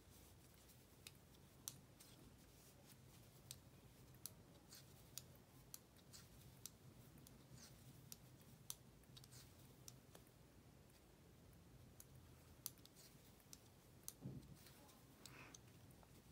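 Faint, irregular clicking of size 7 circular knitting needles as stitches are knit, over a low steady hum.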